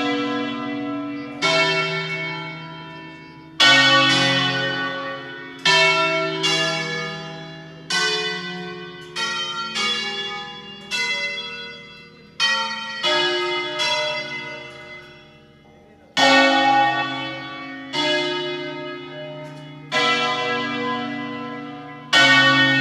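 Eight church bells playing a pre-programmed melodic 'concerto': single strikes one after another, about one a second, each bell ringing on and fading at its own pitch so that the strikes form a tune.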